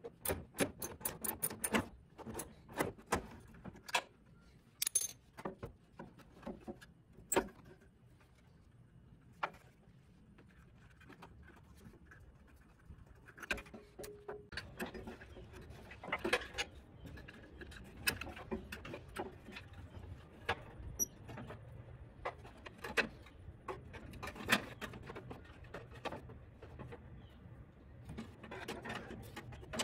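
Metal hand tools clicking and clinking on a horn's mounting bolt and bracket as the bolt is worked loose. A quick run of sharp clicks comes at the start, then scattered clinks and handling noise.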